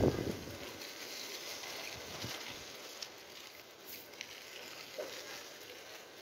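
Mountain bike rolling slowly along a rough lane: a faint steady hiss with a few light clicks and taps.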